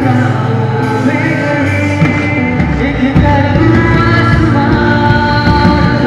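A man singing a song into a handheld microphone with instrumental accompaniment; a steady beat comes in about two seconds in.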